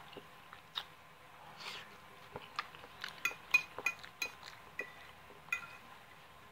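Metal fork clinking and scraping against a plate as noodles are picked up: a string of light clinks, each ringing briefly, coming thickest between about three and six seconds in.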